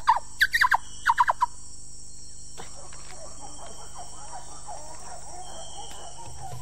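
A hunter calling through a hand cupped over his mouth, imitating monkey calls: a quick run of about eight high squeals, each falling in pitch, over the first second and a half. Fainter warbling chatter follows from about the middle on.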